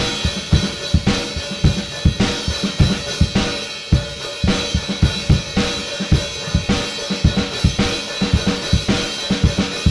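Drum kit played in a steady groove: bass drum and snare hits under a continuous cymbal wash.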